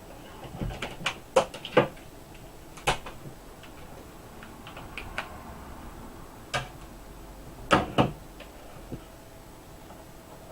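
Scattered sharp plastic clicks and knocks from handling a Toshiba Equium L40 laptop as its battery is taken out. The loudest is a pair of knocks near the end.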